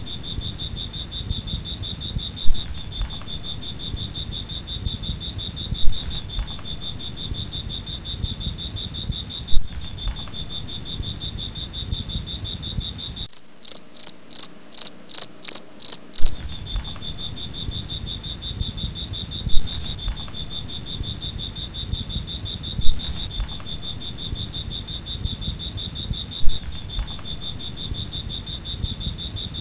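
Steady high-pitched insect drone. About halfway through it gives way for some three seconds to a faster pulsing insect call, about three to four pulses a second. Underneath is a low rumble with a sharp loud click every few seconds.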